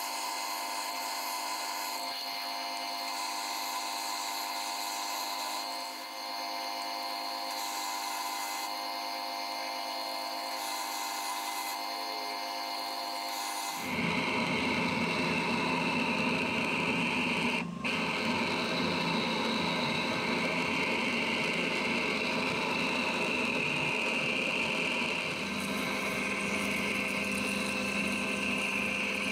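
Metal lathe running with a twist drill in the tailstock boring into a metal bar: steady whine of the lathe with the drill cutting. About 14 s in it changes to a larger drill cutting, louder and noisier, with a high-pitched tone over it.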